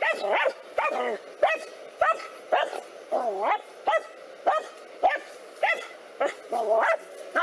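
A dog barking over and over, about two barks a second, as it confronts a cobra.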